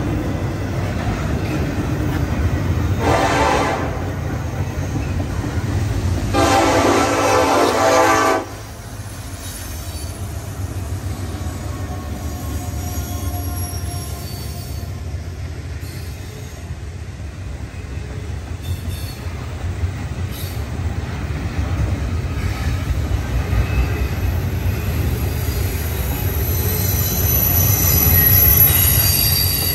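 Diesel locomotive air horn giving a short blast and then a long one that cuts off about eight seconds in, over the steady low rumble and wheel clatter of a passing double-stack intermodal freight train. Faint high wheel squeal near the end.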